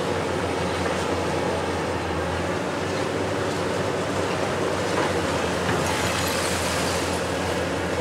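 Hitachi 870 XXL long-reach demolition excavator's diesel engine running steadily under load while its demolition jaws break concrete from the building, with rubble falling and the hiss of a dust-suppression water spray.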